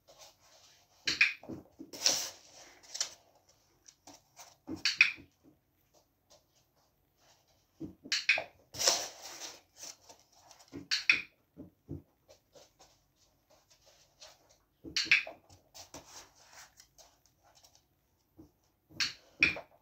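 A dog moving about on a floor and rug: short, intermittent bouts of scuffling paws and light thumps, with quiet gaps between them.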